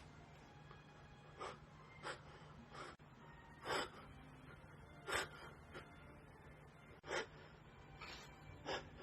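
About eight short, sharp gasping breaths spaced a second or so apart, the catching inhalations of someone building up to a sneeze.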